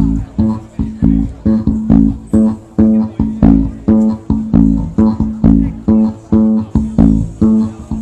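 Live band music through the stage PA: plucked guitar and bass repeating a quick rhythmic note pattern, about two notes a second, on one recurring note.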